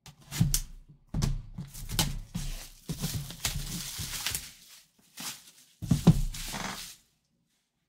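Shrink-wrap plastic slit with a box cutter and peeled off a cardboard box, crinkling and tearing loudest between about three and four and a half seconds in, with the box knocking on the table about half a second in and again about six seconds in.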